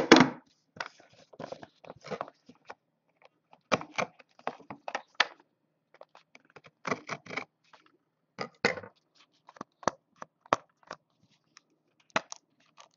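Cardboard trading-card box being worked open, its packing tape scraped and torn in a run of irregular crackles, rips and sharp clicks.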